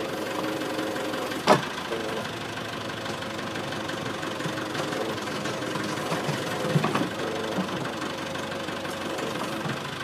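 Caterpillar backhoe loader's diesel engine running steadily as the backhoe arm works at a stump, with one sharp crack about a second and a half in and a few smaller knocks around seven seconds.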